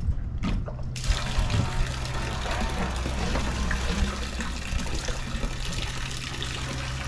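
Water pouring and trickling off a boat-lift pump's intake hose and strainer basket as it is lifted out of the river, starting suddenly about a second in, over a steady low hum.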